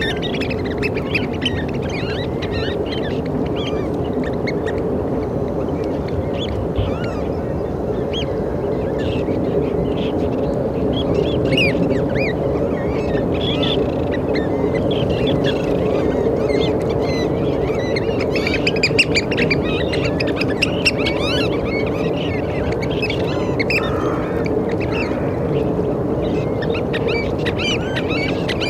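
A flock of Eurasian oystercatchers calling: many short, high, overlapping calls that go on throughout, over a steady low background rumble.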